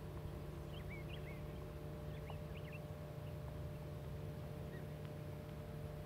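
Steady low hum of a distant engine, with faint, short chirps of small birds scattered through the first half and once or twice near the end.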